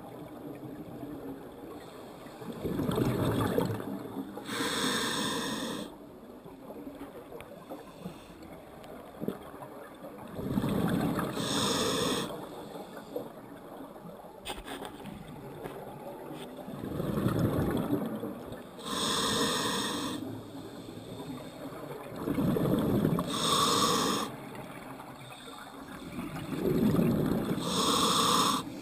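Scuba diver breathing through a demand regulator underwater, about five slow, even breaths. Each breath is a hissing draw on the regulator and a rush of exhaled bubbles.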